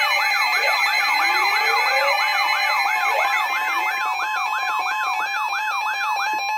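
Electronic emergency alert attention signal: a siren-like tone sweeping up and down about three times a second over steady held tones, leading into a weather warning broadcast.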